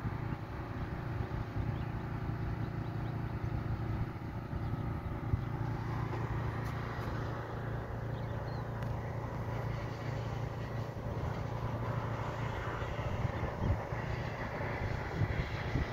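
Steady machinery hum holding several unchanging tones, with a ragged low rumble of wind buffeting the microphone.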